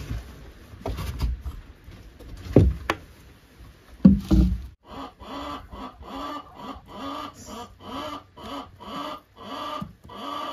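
A few wooden knocks and a thump from the coop door and its wooden latch, then a hen calling over and over, about two short calls a second, the agitated call of a hen that is upset.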